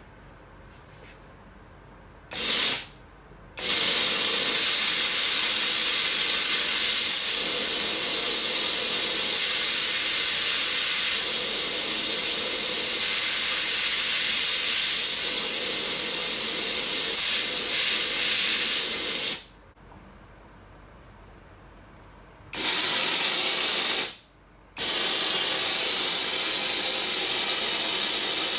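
Jet of steam hissing from the wand of a 6-bar Eumax SJ6-4LG steam cleaner, switched on and off with the foot pedal: a short burst, one long blast of about sixteen seconds, then two more bursts near the end.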